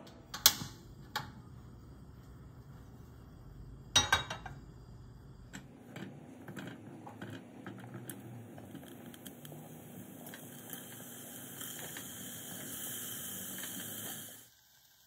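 A kitchen knife knocking on a plastic cutting board as strawberries are cut, a few sharp strokes in the first four seconds. Then a silicone spatula scraping chopped strawberries off the board into a stainless steel saucepan: light taps and a scraping hiss that grows louder and cuts off suddenly near the end.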